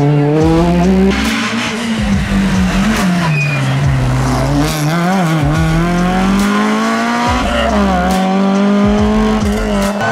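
Rally car engines revving hard, the pitch climbing under acceleration and dropping at gear changes and braking, with a few jumps from one car to the next.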